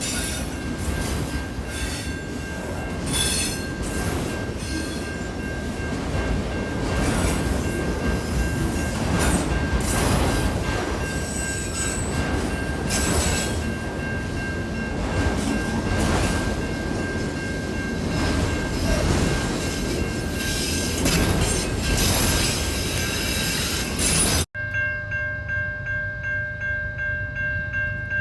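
Railroad cars rolling past close by: a heavy wheel rumble with repeated clacks over rail joints and a steady high-pitched wheel squeal. Near the end the sound cuts off abruptly to something much quieter, with several steady tones.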